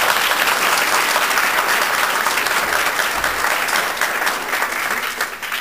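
A large group of people applauding with their hands, a dense steady clapping that thins out near the end.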